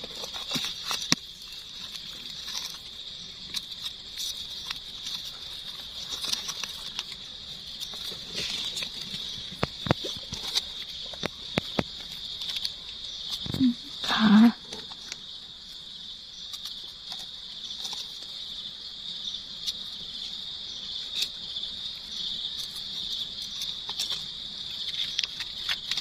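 A steady, high-pitched insect chorus, with leaf litter crackling and rustling in short clicks as hands and a knife dig mushrooms out of the forest floor. There is a brief louder noise about 14 seconds in.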